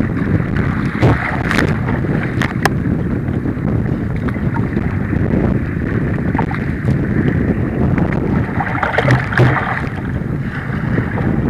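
Wind buffeting the microphone over rough water while kayaking, a steady rumbling rush. Brief sharp splashes come about a second in and again near the end.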